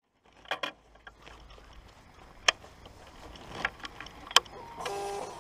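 A few sharp clicks and knocks from handling a Suzuki GSX-S 1000 motorcycle at standstill, then a steady whir near the end as the bike is being started, its instrument panel in its key-on self-test.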